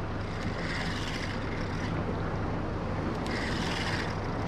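Boat engine idling with a steady low hum, while a soft hiss swells and fades about every couple of seconds.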